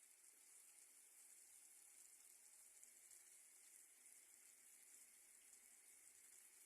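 Near silence with a faint, steady hiss of sugar syrup boiling in a pan on a gas stove.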